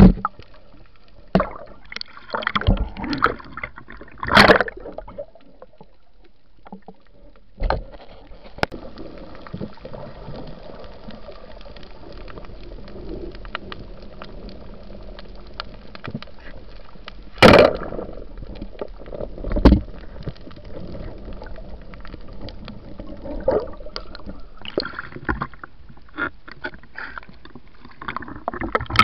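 Underwater sound on a night spearfishing dive: a steady watery hiss with scattered gurgling bubble bursts and a few sharp knocks, the sharpest a little past halfway.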